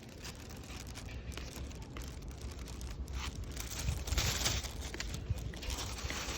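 Packaging crinkling and rustling as it is handled, with many small irregular crackles, a little busier from about four seconds in.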